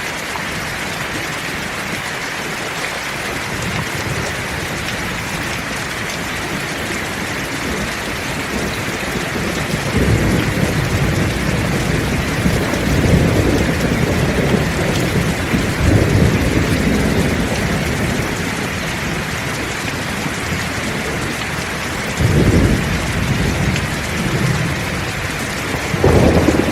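Heavy rain falling steadily, with thunder rumbling in several deep swells from about a third of the way in, the last swell near the end.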